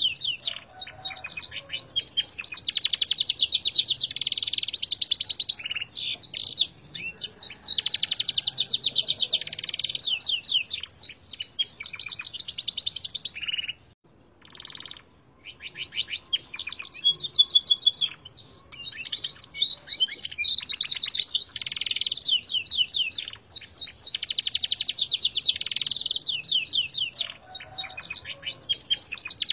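Gloster canary singing long runs of fast trills and chirps, its song filled with phrases taught from red siskin recordings. The song breaks off briefly about halfway through, then carries on.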